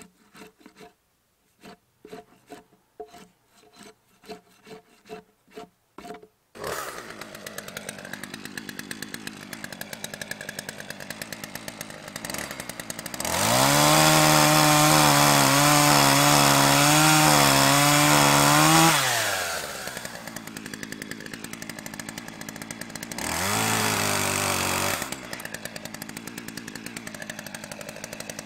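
Drawknife shaving a wet poplar plank in a run of short scraping strokes. Then a gas chainsaw idles, revs up for about five seconds as it cuts into the log bench, falls back to idle, and revs briefly once more before idling again.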